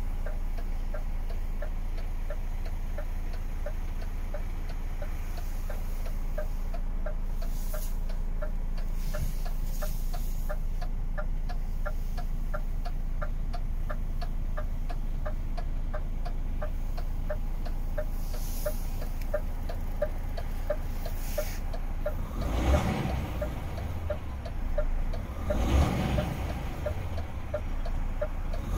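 DAF XF 480's PACCAR MX-13 straight-six diesel idling, heard as a steady low hum from inside the cab, with an even ticking about twice a second over it. In the last several seconds the ticking is covered by a few louder bursts of rumbling noise.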